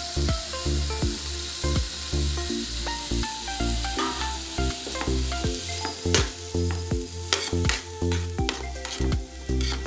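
Chopped tomatoes, shallots and dried chillies sizzling in hot oil in an aluminium kadai while a metal slotted spoon stirs them, with a few sharp clinks and scrapes of the spoon on the pan in the second half. Background music with a steady beat runs underneath.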